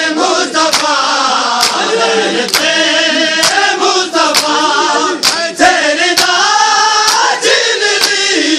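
A noha (mourning lament) sung by men's voices, with a crowd of mourners beating their chests in unison, one loud slap about every second, keeping the beat of the lament (matam).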